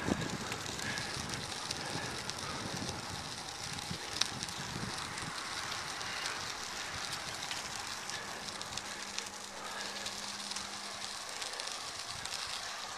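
Bicycle tyres rolling over a crushed-gravel trail, a steady crackling hiss with a few sharper clicks and some wind on the microphone. A faint steady low hum joins about two-thirds of the way in.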